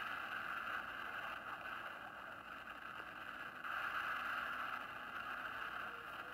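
A steady rushing hiss with no speech or music, the background noise of an old film soundtrack; it swells a little a little under four seconds in.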